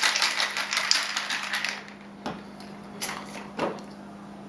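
Ice cubes and liquid rattling rapidly inside a cocktail shaker, a mixing glass capped on a metal tin, shaken hard; the shaking stops about two seconds in. Then a few separate clinks and knocks as the glass and the tin are handled and pulled apart.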